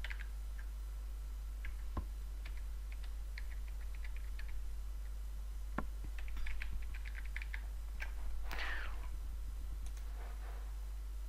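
Computer keyboard keys tapped in short scattered runs, with a few sharper mouse clicks, over a steady low electrical hum.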